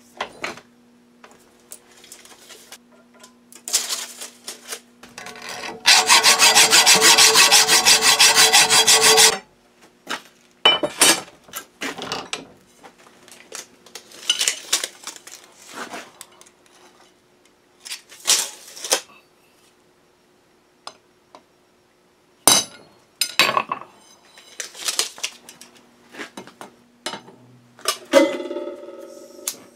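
Steel bar stock being handled and cut: scattered knocks and scrapes of 1/2-inch square steel bar and tools, and about three seconds of steady, fast sawing through the steel, the loudest sound, about six seconds in.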